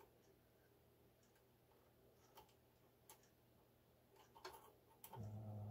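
Near silence, with a few faint light clicks as a bobbin is fitted into the bobbin race of a Singer 431G sewing machine and its thread is guided into the notch.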